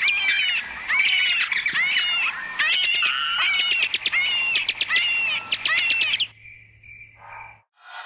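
Creature sound effect for an imagined prehistoric insect: fast, shrill chirping and squeaking calls, many overlapping and sweeping in pitch, mixed with quick clicks. It stops abruptly about six seconds in, leaving a few faint short peeps.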